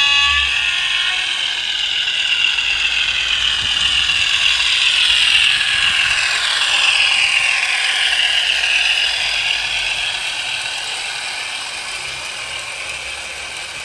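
Hornby OO gauge Class 50 model diesel fitted with a Howes DCC sound chip passing by. Its small speaker plays a recorded English Electric diesel engine sound, mixed with the rattle of the model's running gear on the track. It is loudest about midway, and the pitch bands slide lower before the sound fades as the train pulls away.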